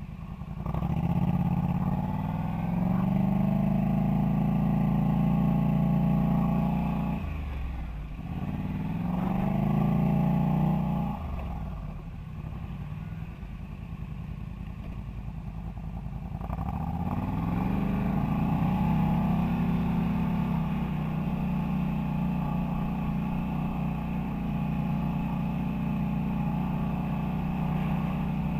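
Polaris quad's engine under throttle on a trail. It revs up and holds, drops back about 7 seconds in, revs up again and drops about 11 seconds in, then runs low for a few seconds. It picks up again about 17 seconds in and holds a steady pace.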